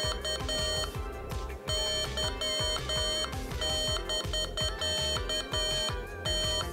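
Morserino 32 Morse code trainer's speaker beeping randomly generated CW: a steady mid-pitched tone keyed into dits and dahs, starting with the generator's vvv <ka> opening sequence.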